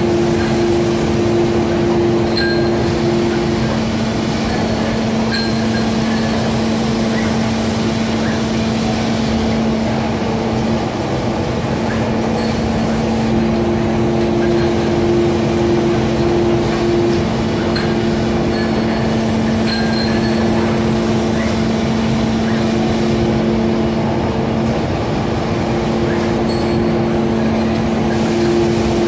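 Continuous hum and whir of an automated production line of industrial robots and machine stations, with two steady tones in it; the higher tone drops out a few seconds in and comes back twice, and faint light clicks sound now and then.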